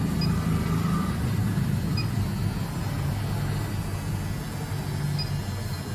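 A steady low mechanical hum, with three short, faint electronic beeps from the handheld diagnostic scanner's keys, spaced a couple of seconds apart.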